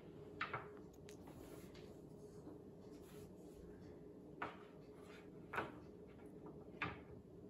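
Wooden spoons tapping against a metal baking sheet as they are laid out and turned in a shallow vinegar-and-water soak: a few light, sharp knocks, a quick pair near the start and three more spread through the second half.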